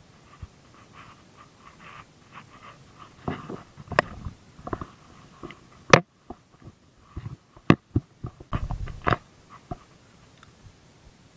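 Leaves and branches rustling with handling noise and several sharp clicks and knocks, the sharpest about six seconds in, as a person moves about in a tree with his gear.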